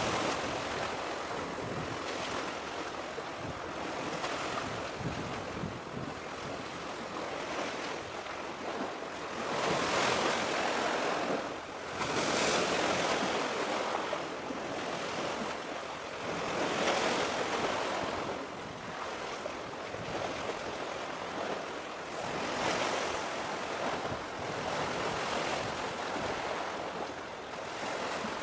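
Waves washing in, a steady rush of surf that swells and eases every few seconds, with some wind.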